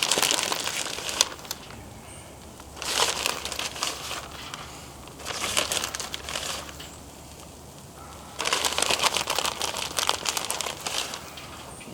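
Plastic bag being handled, crinkling in four separate bursts with short pauses between them; the longest burst comes near the end.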